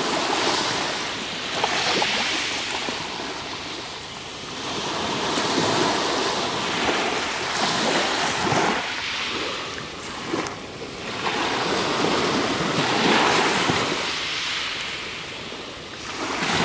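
Small waves breaking and washing up and back over a pebble beach, the surf swelling and fading in a few slow surges, with the clatter of the pebbles being rolled.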